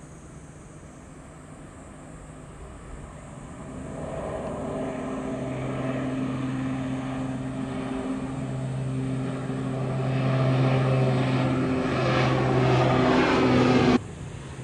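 De Havilland Canada Dash 8-400 turboprop airliner climbing out overhead: the steady drone of its two PW150A turboprop engines and six-blade propellers grows louder as it approaches and passes, with a low propeller hum. The sound drops suddenly about fourteen seconds in.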